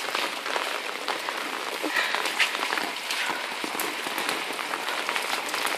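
Steady patter of falling water drops on the wet, hail-covered yard, with scattered sharper drips.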